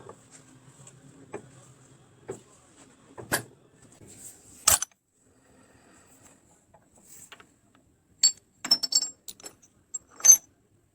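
Small metal parts clinking and knocking together as they are handled, in scattered single strikes, with a quick cluster of clinks about eight to nine seconds in.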